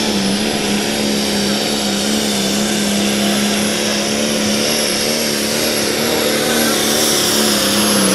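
Super stock pulling tractor's diesel engine held at full throttle while dragging the weight sled, a loud steady engine note with a thin high whistle above it.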